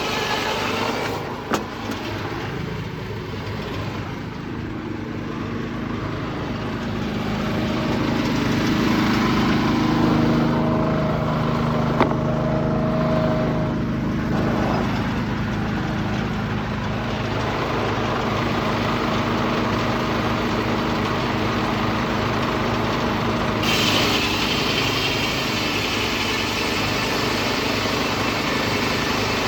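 Detroit Diesel 6-71 two-stroke diesel running steadily at the sawmill, heard muffled from inside a pocket, growing louder through the middle stretch. Two sharp knocks stand out, one a second or two in and one near the middle.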